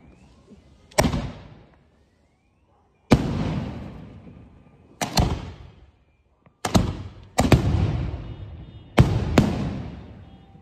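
Aerial firework shells bursting overhead: six loud bangs about one to two seconds apart, each trailing off in a long echo.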